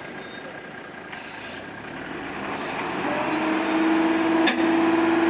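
Heavy tipper truck's engine running, growing louder, with a steady droning tone coming in about three seconds in and a sharp click near the end.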